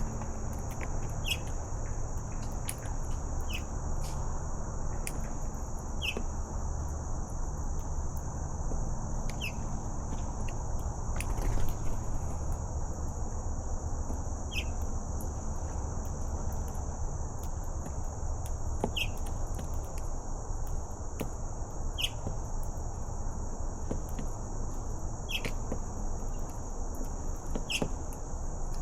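Steady high-pitched insect chorus, with short falling chirps every two to three seconds over a low rumble, and a louder knock about eleven seconds in.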